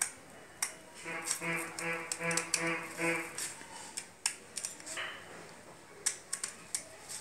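Scissors snipping through stiff fusible buckram in a series of short, sharp cuts. About a second in, a pitched tone pulses about five times in quick succession behind the snips.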